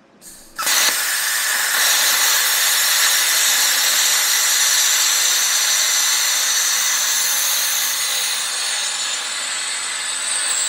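ESAB Cutmaster 40 plasma cutter running at 40 amps and cutting quarter-inch plate. A short burst as the torch fires, then about half a second in the loud, steady hiss of the plasma arc and air blast starts, easing slightly near the end.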